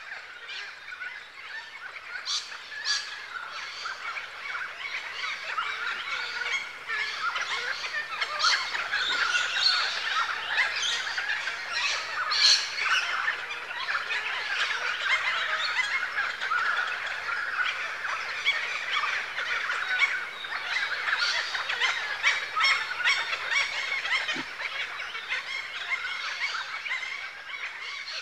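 A flock of birds calling all at once: a dense, continuous mass of overlapping honking calls. It grows louder a few seconds in and eases off near the end.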